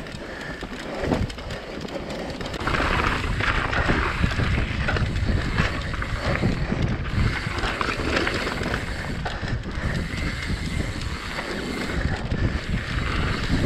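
Mountain bike riding a trail at speed: wind rushing over the microphone over steady tyre and trail rumble, with many small knocks and clatters from the rough ground.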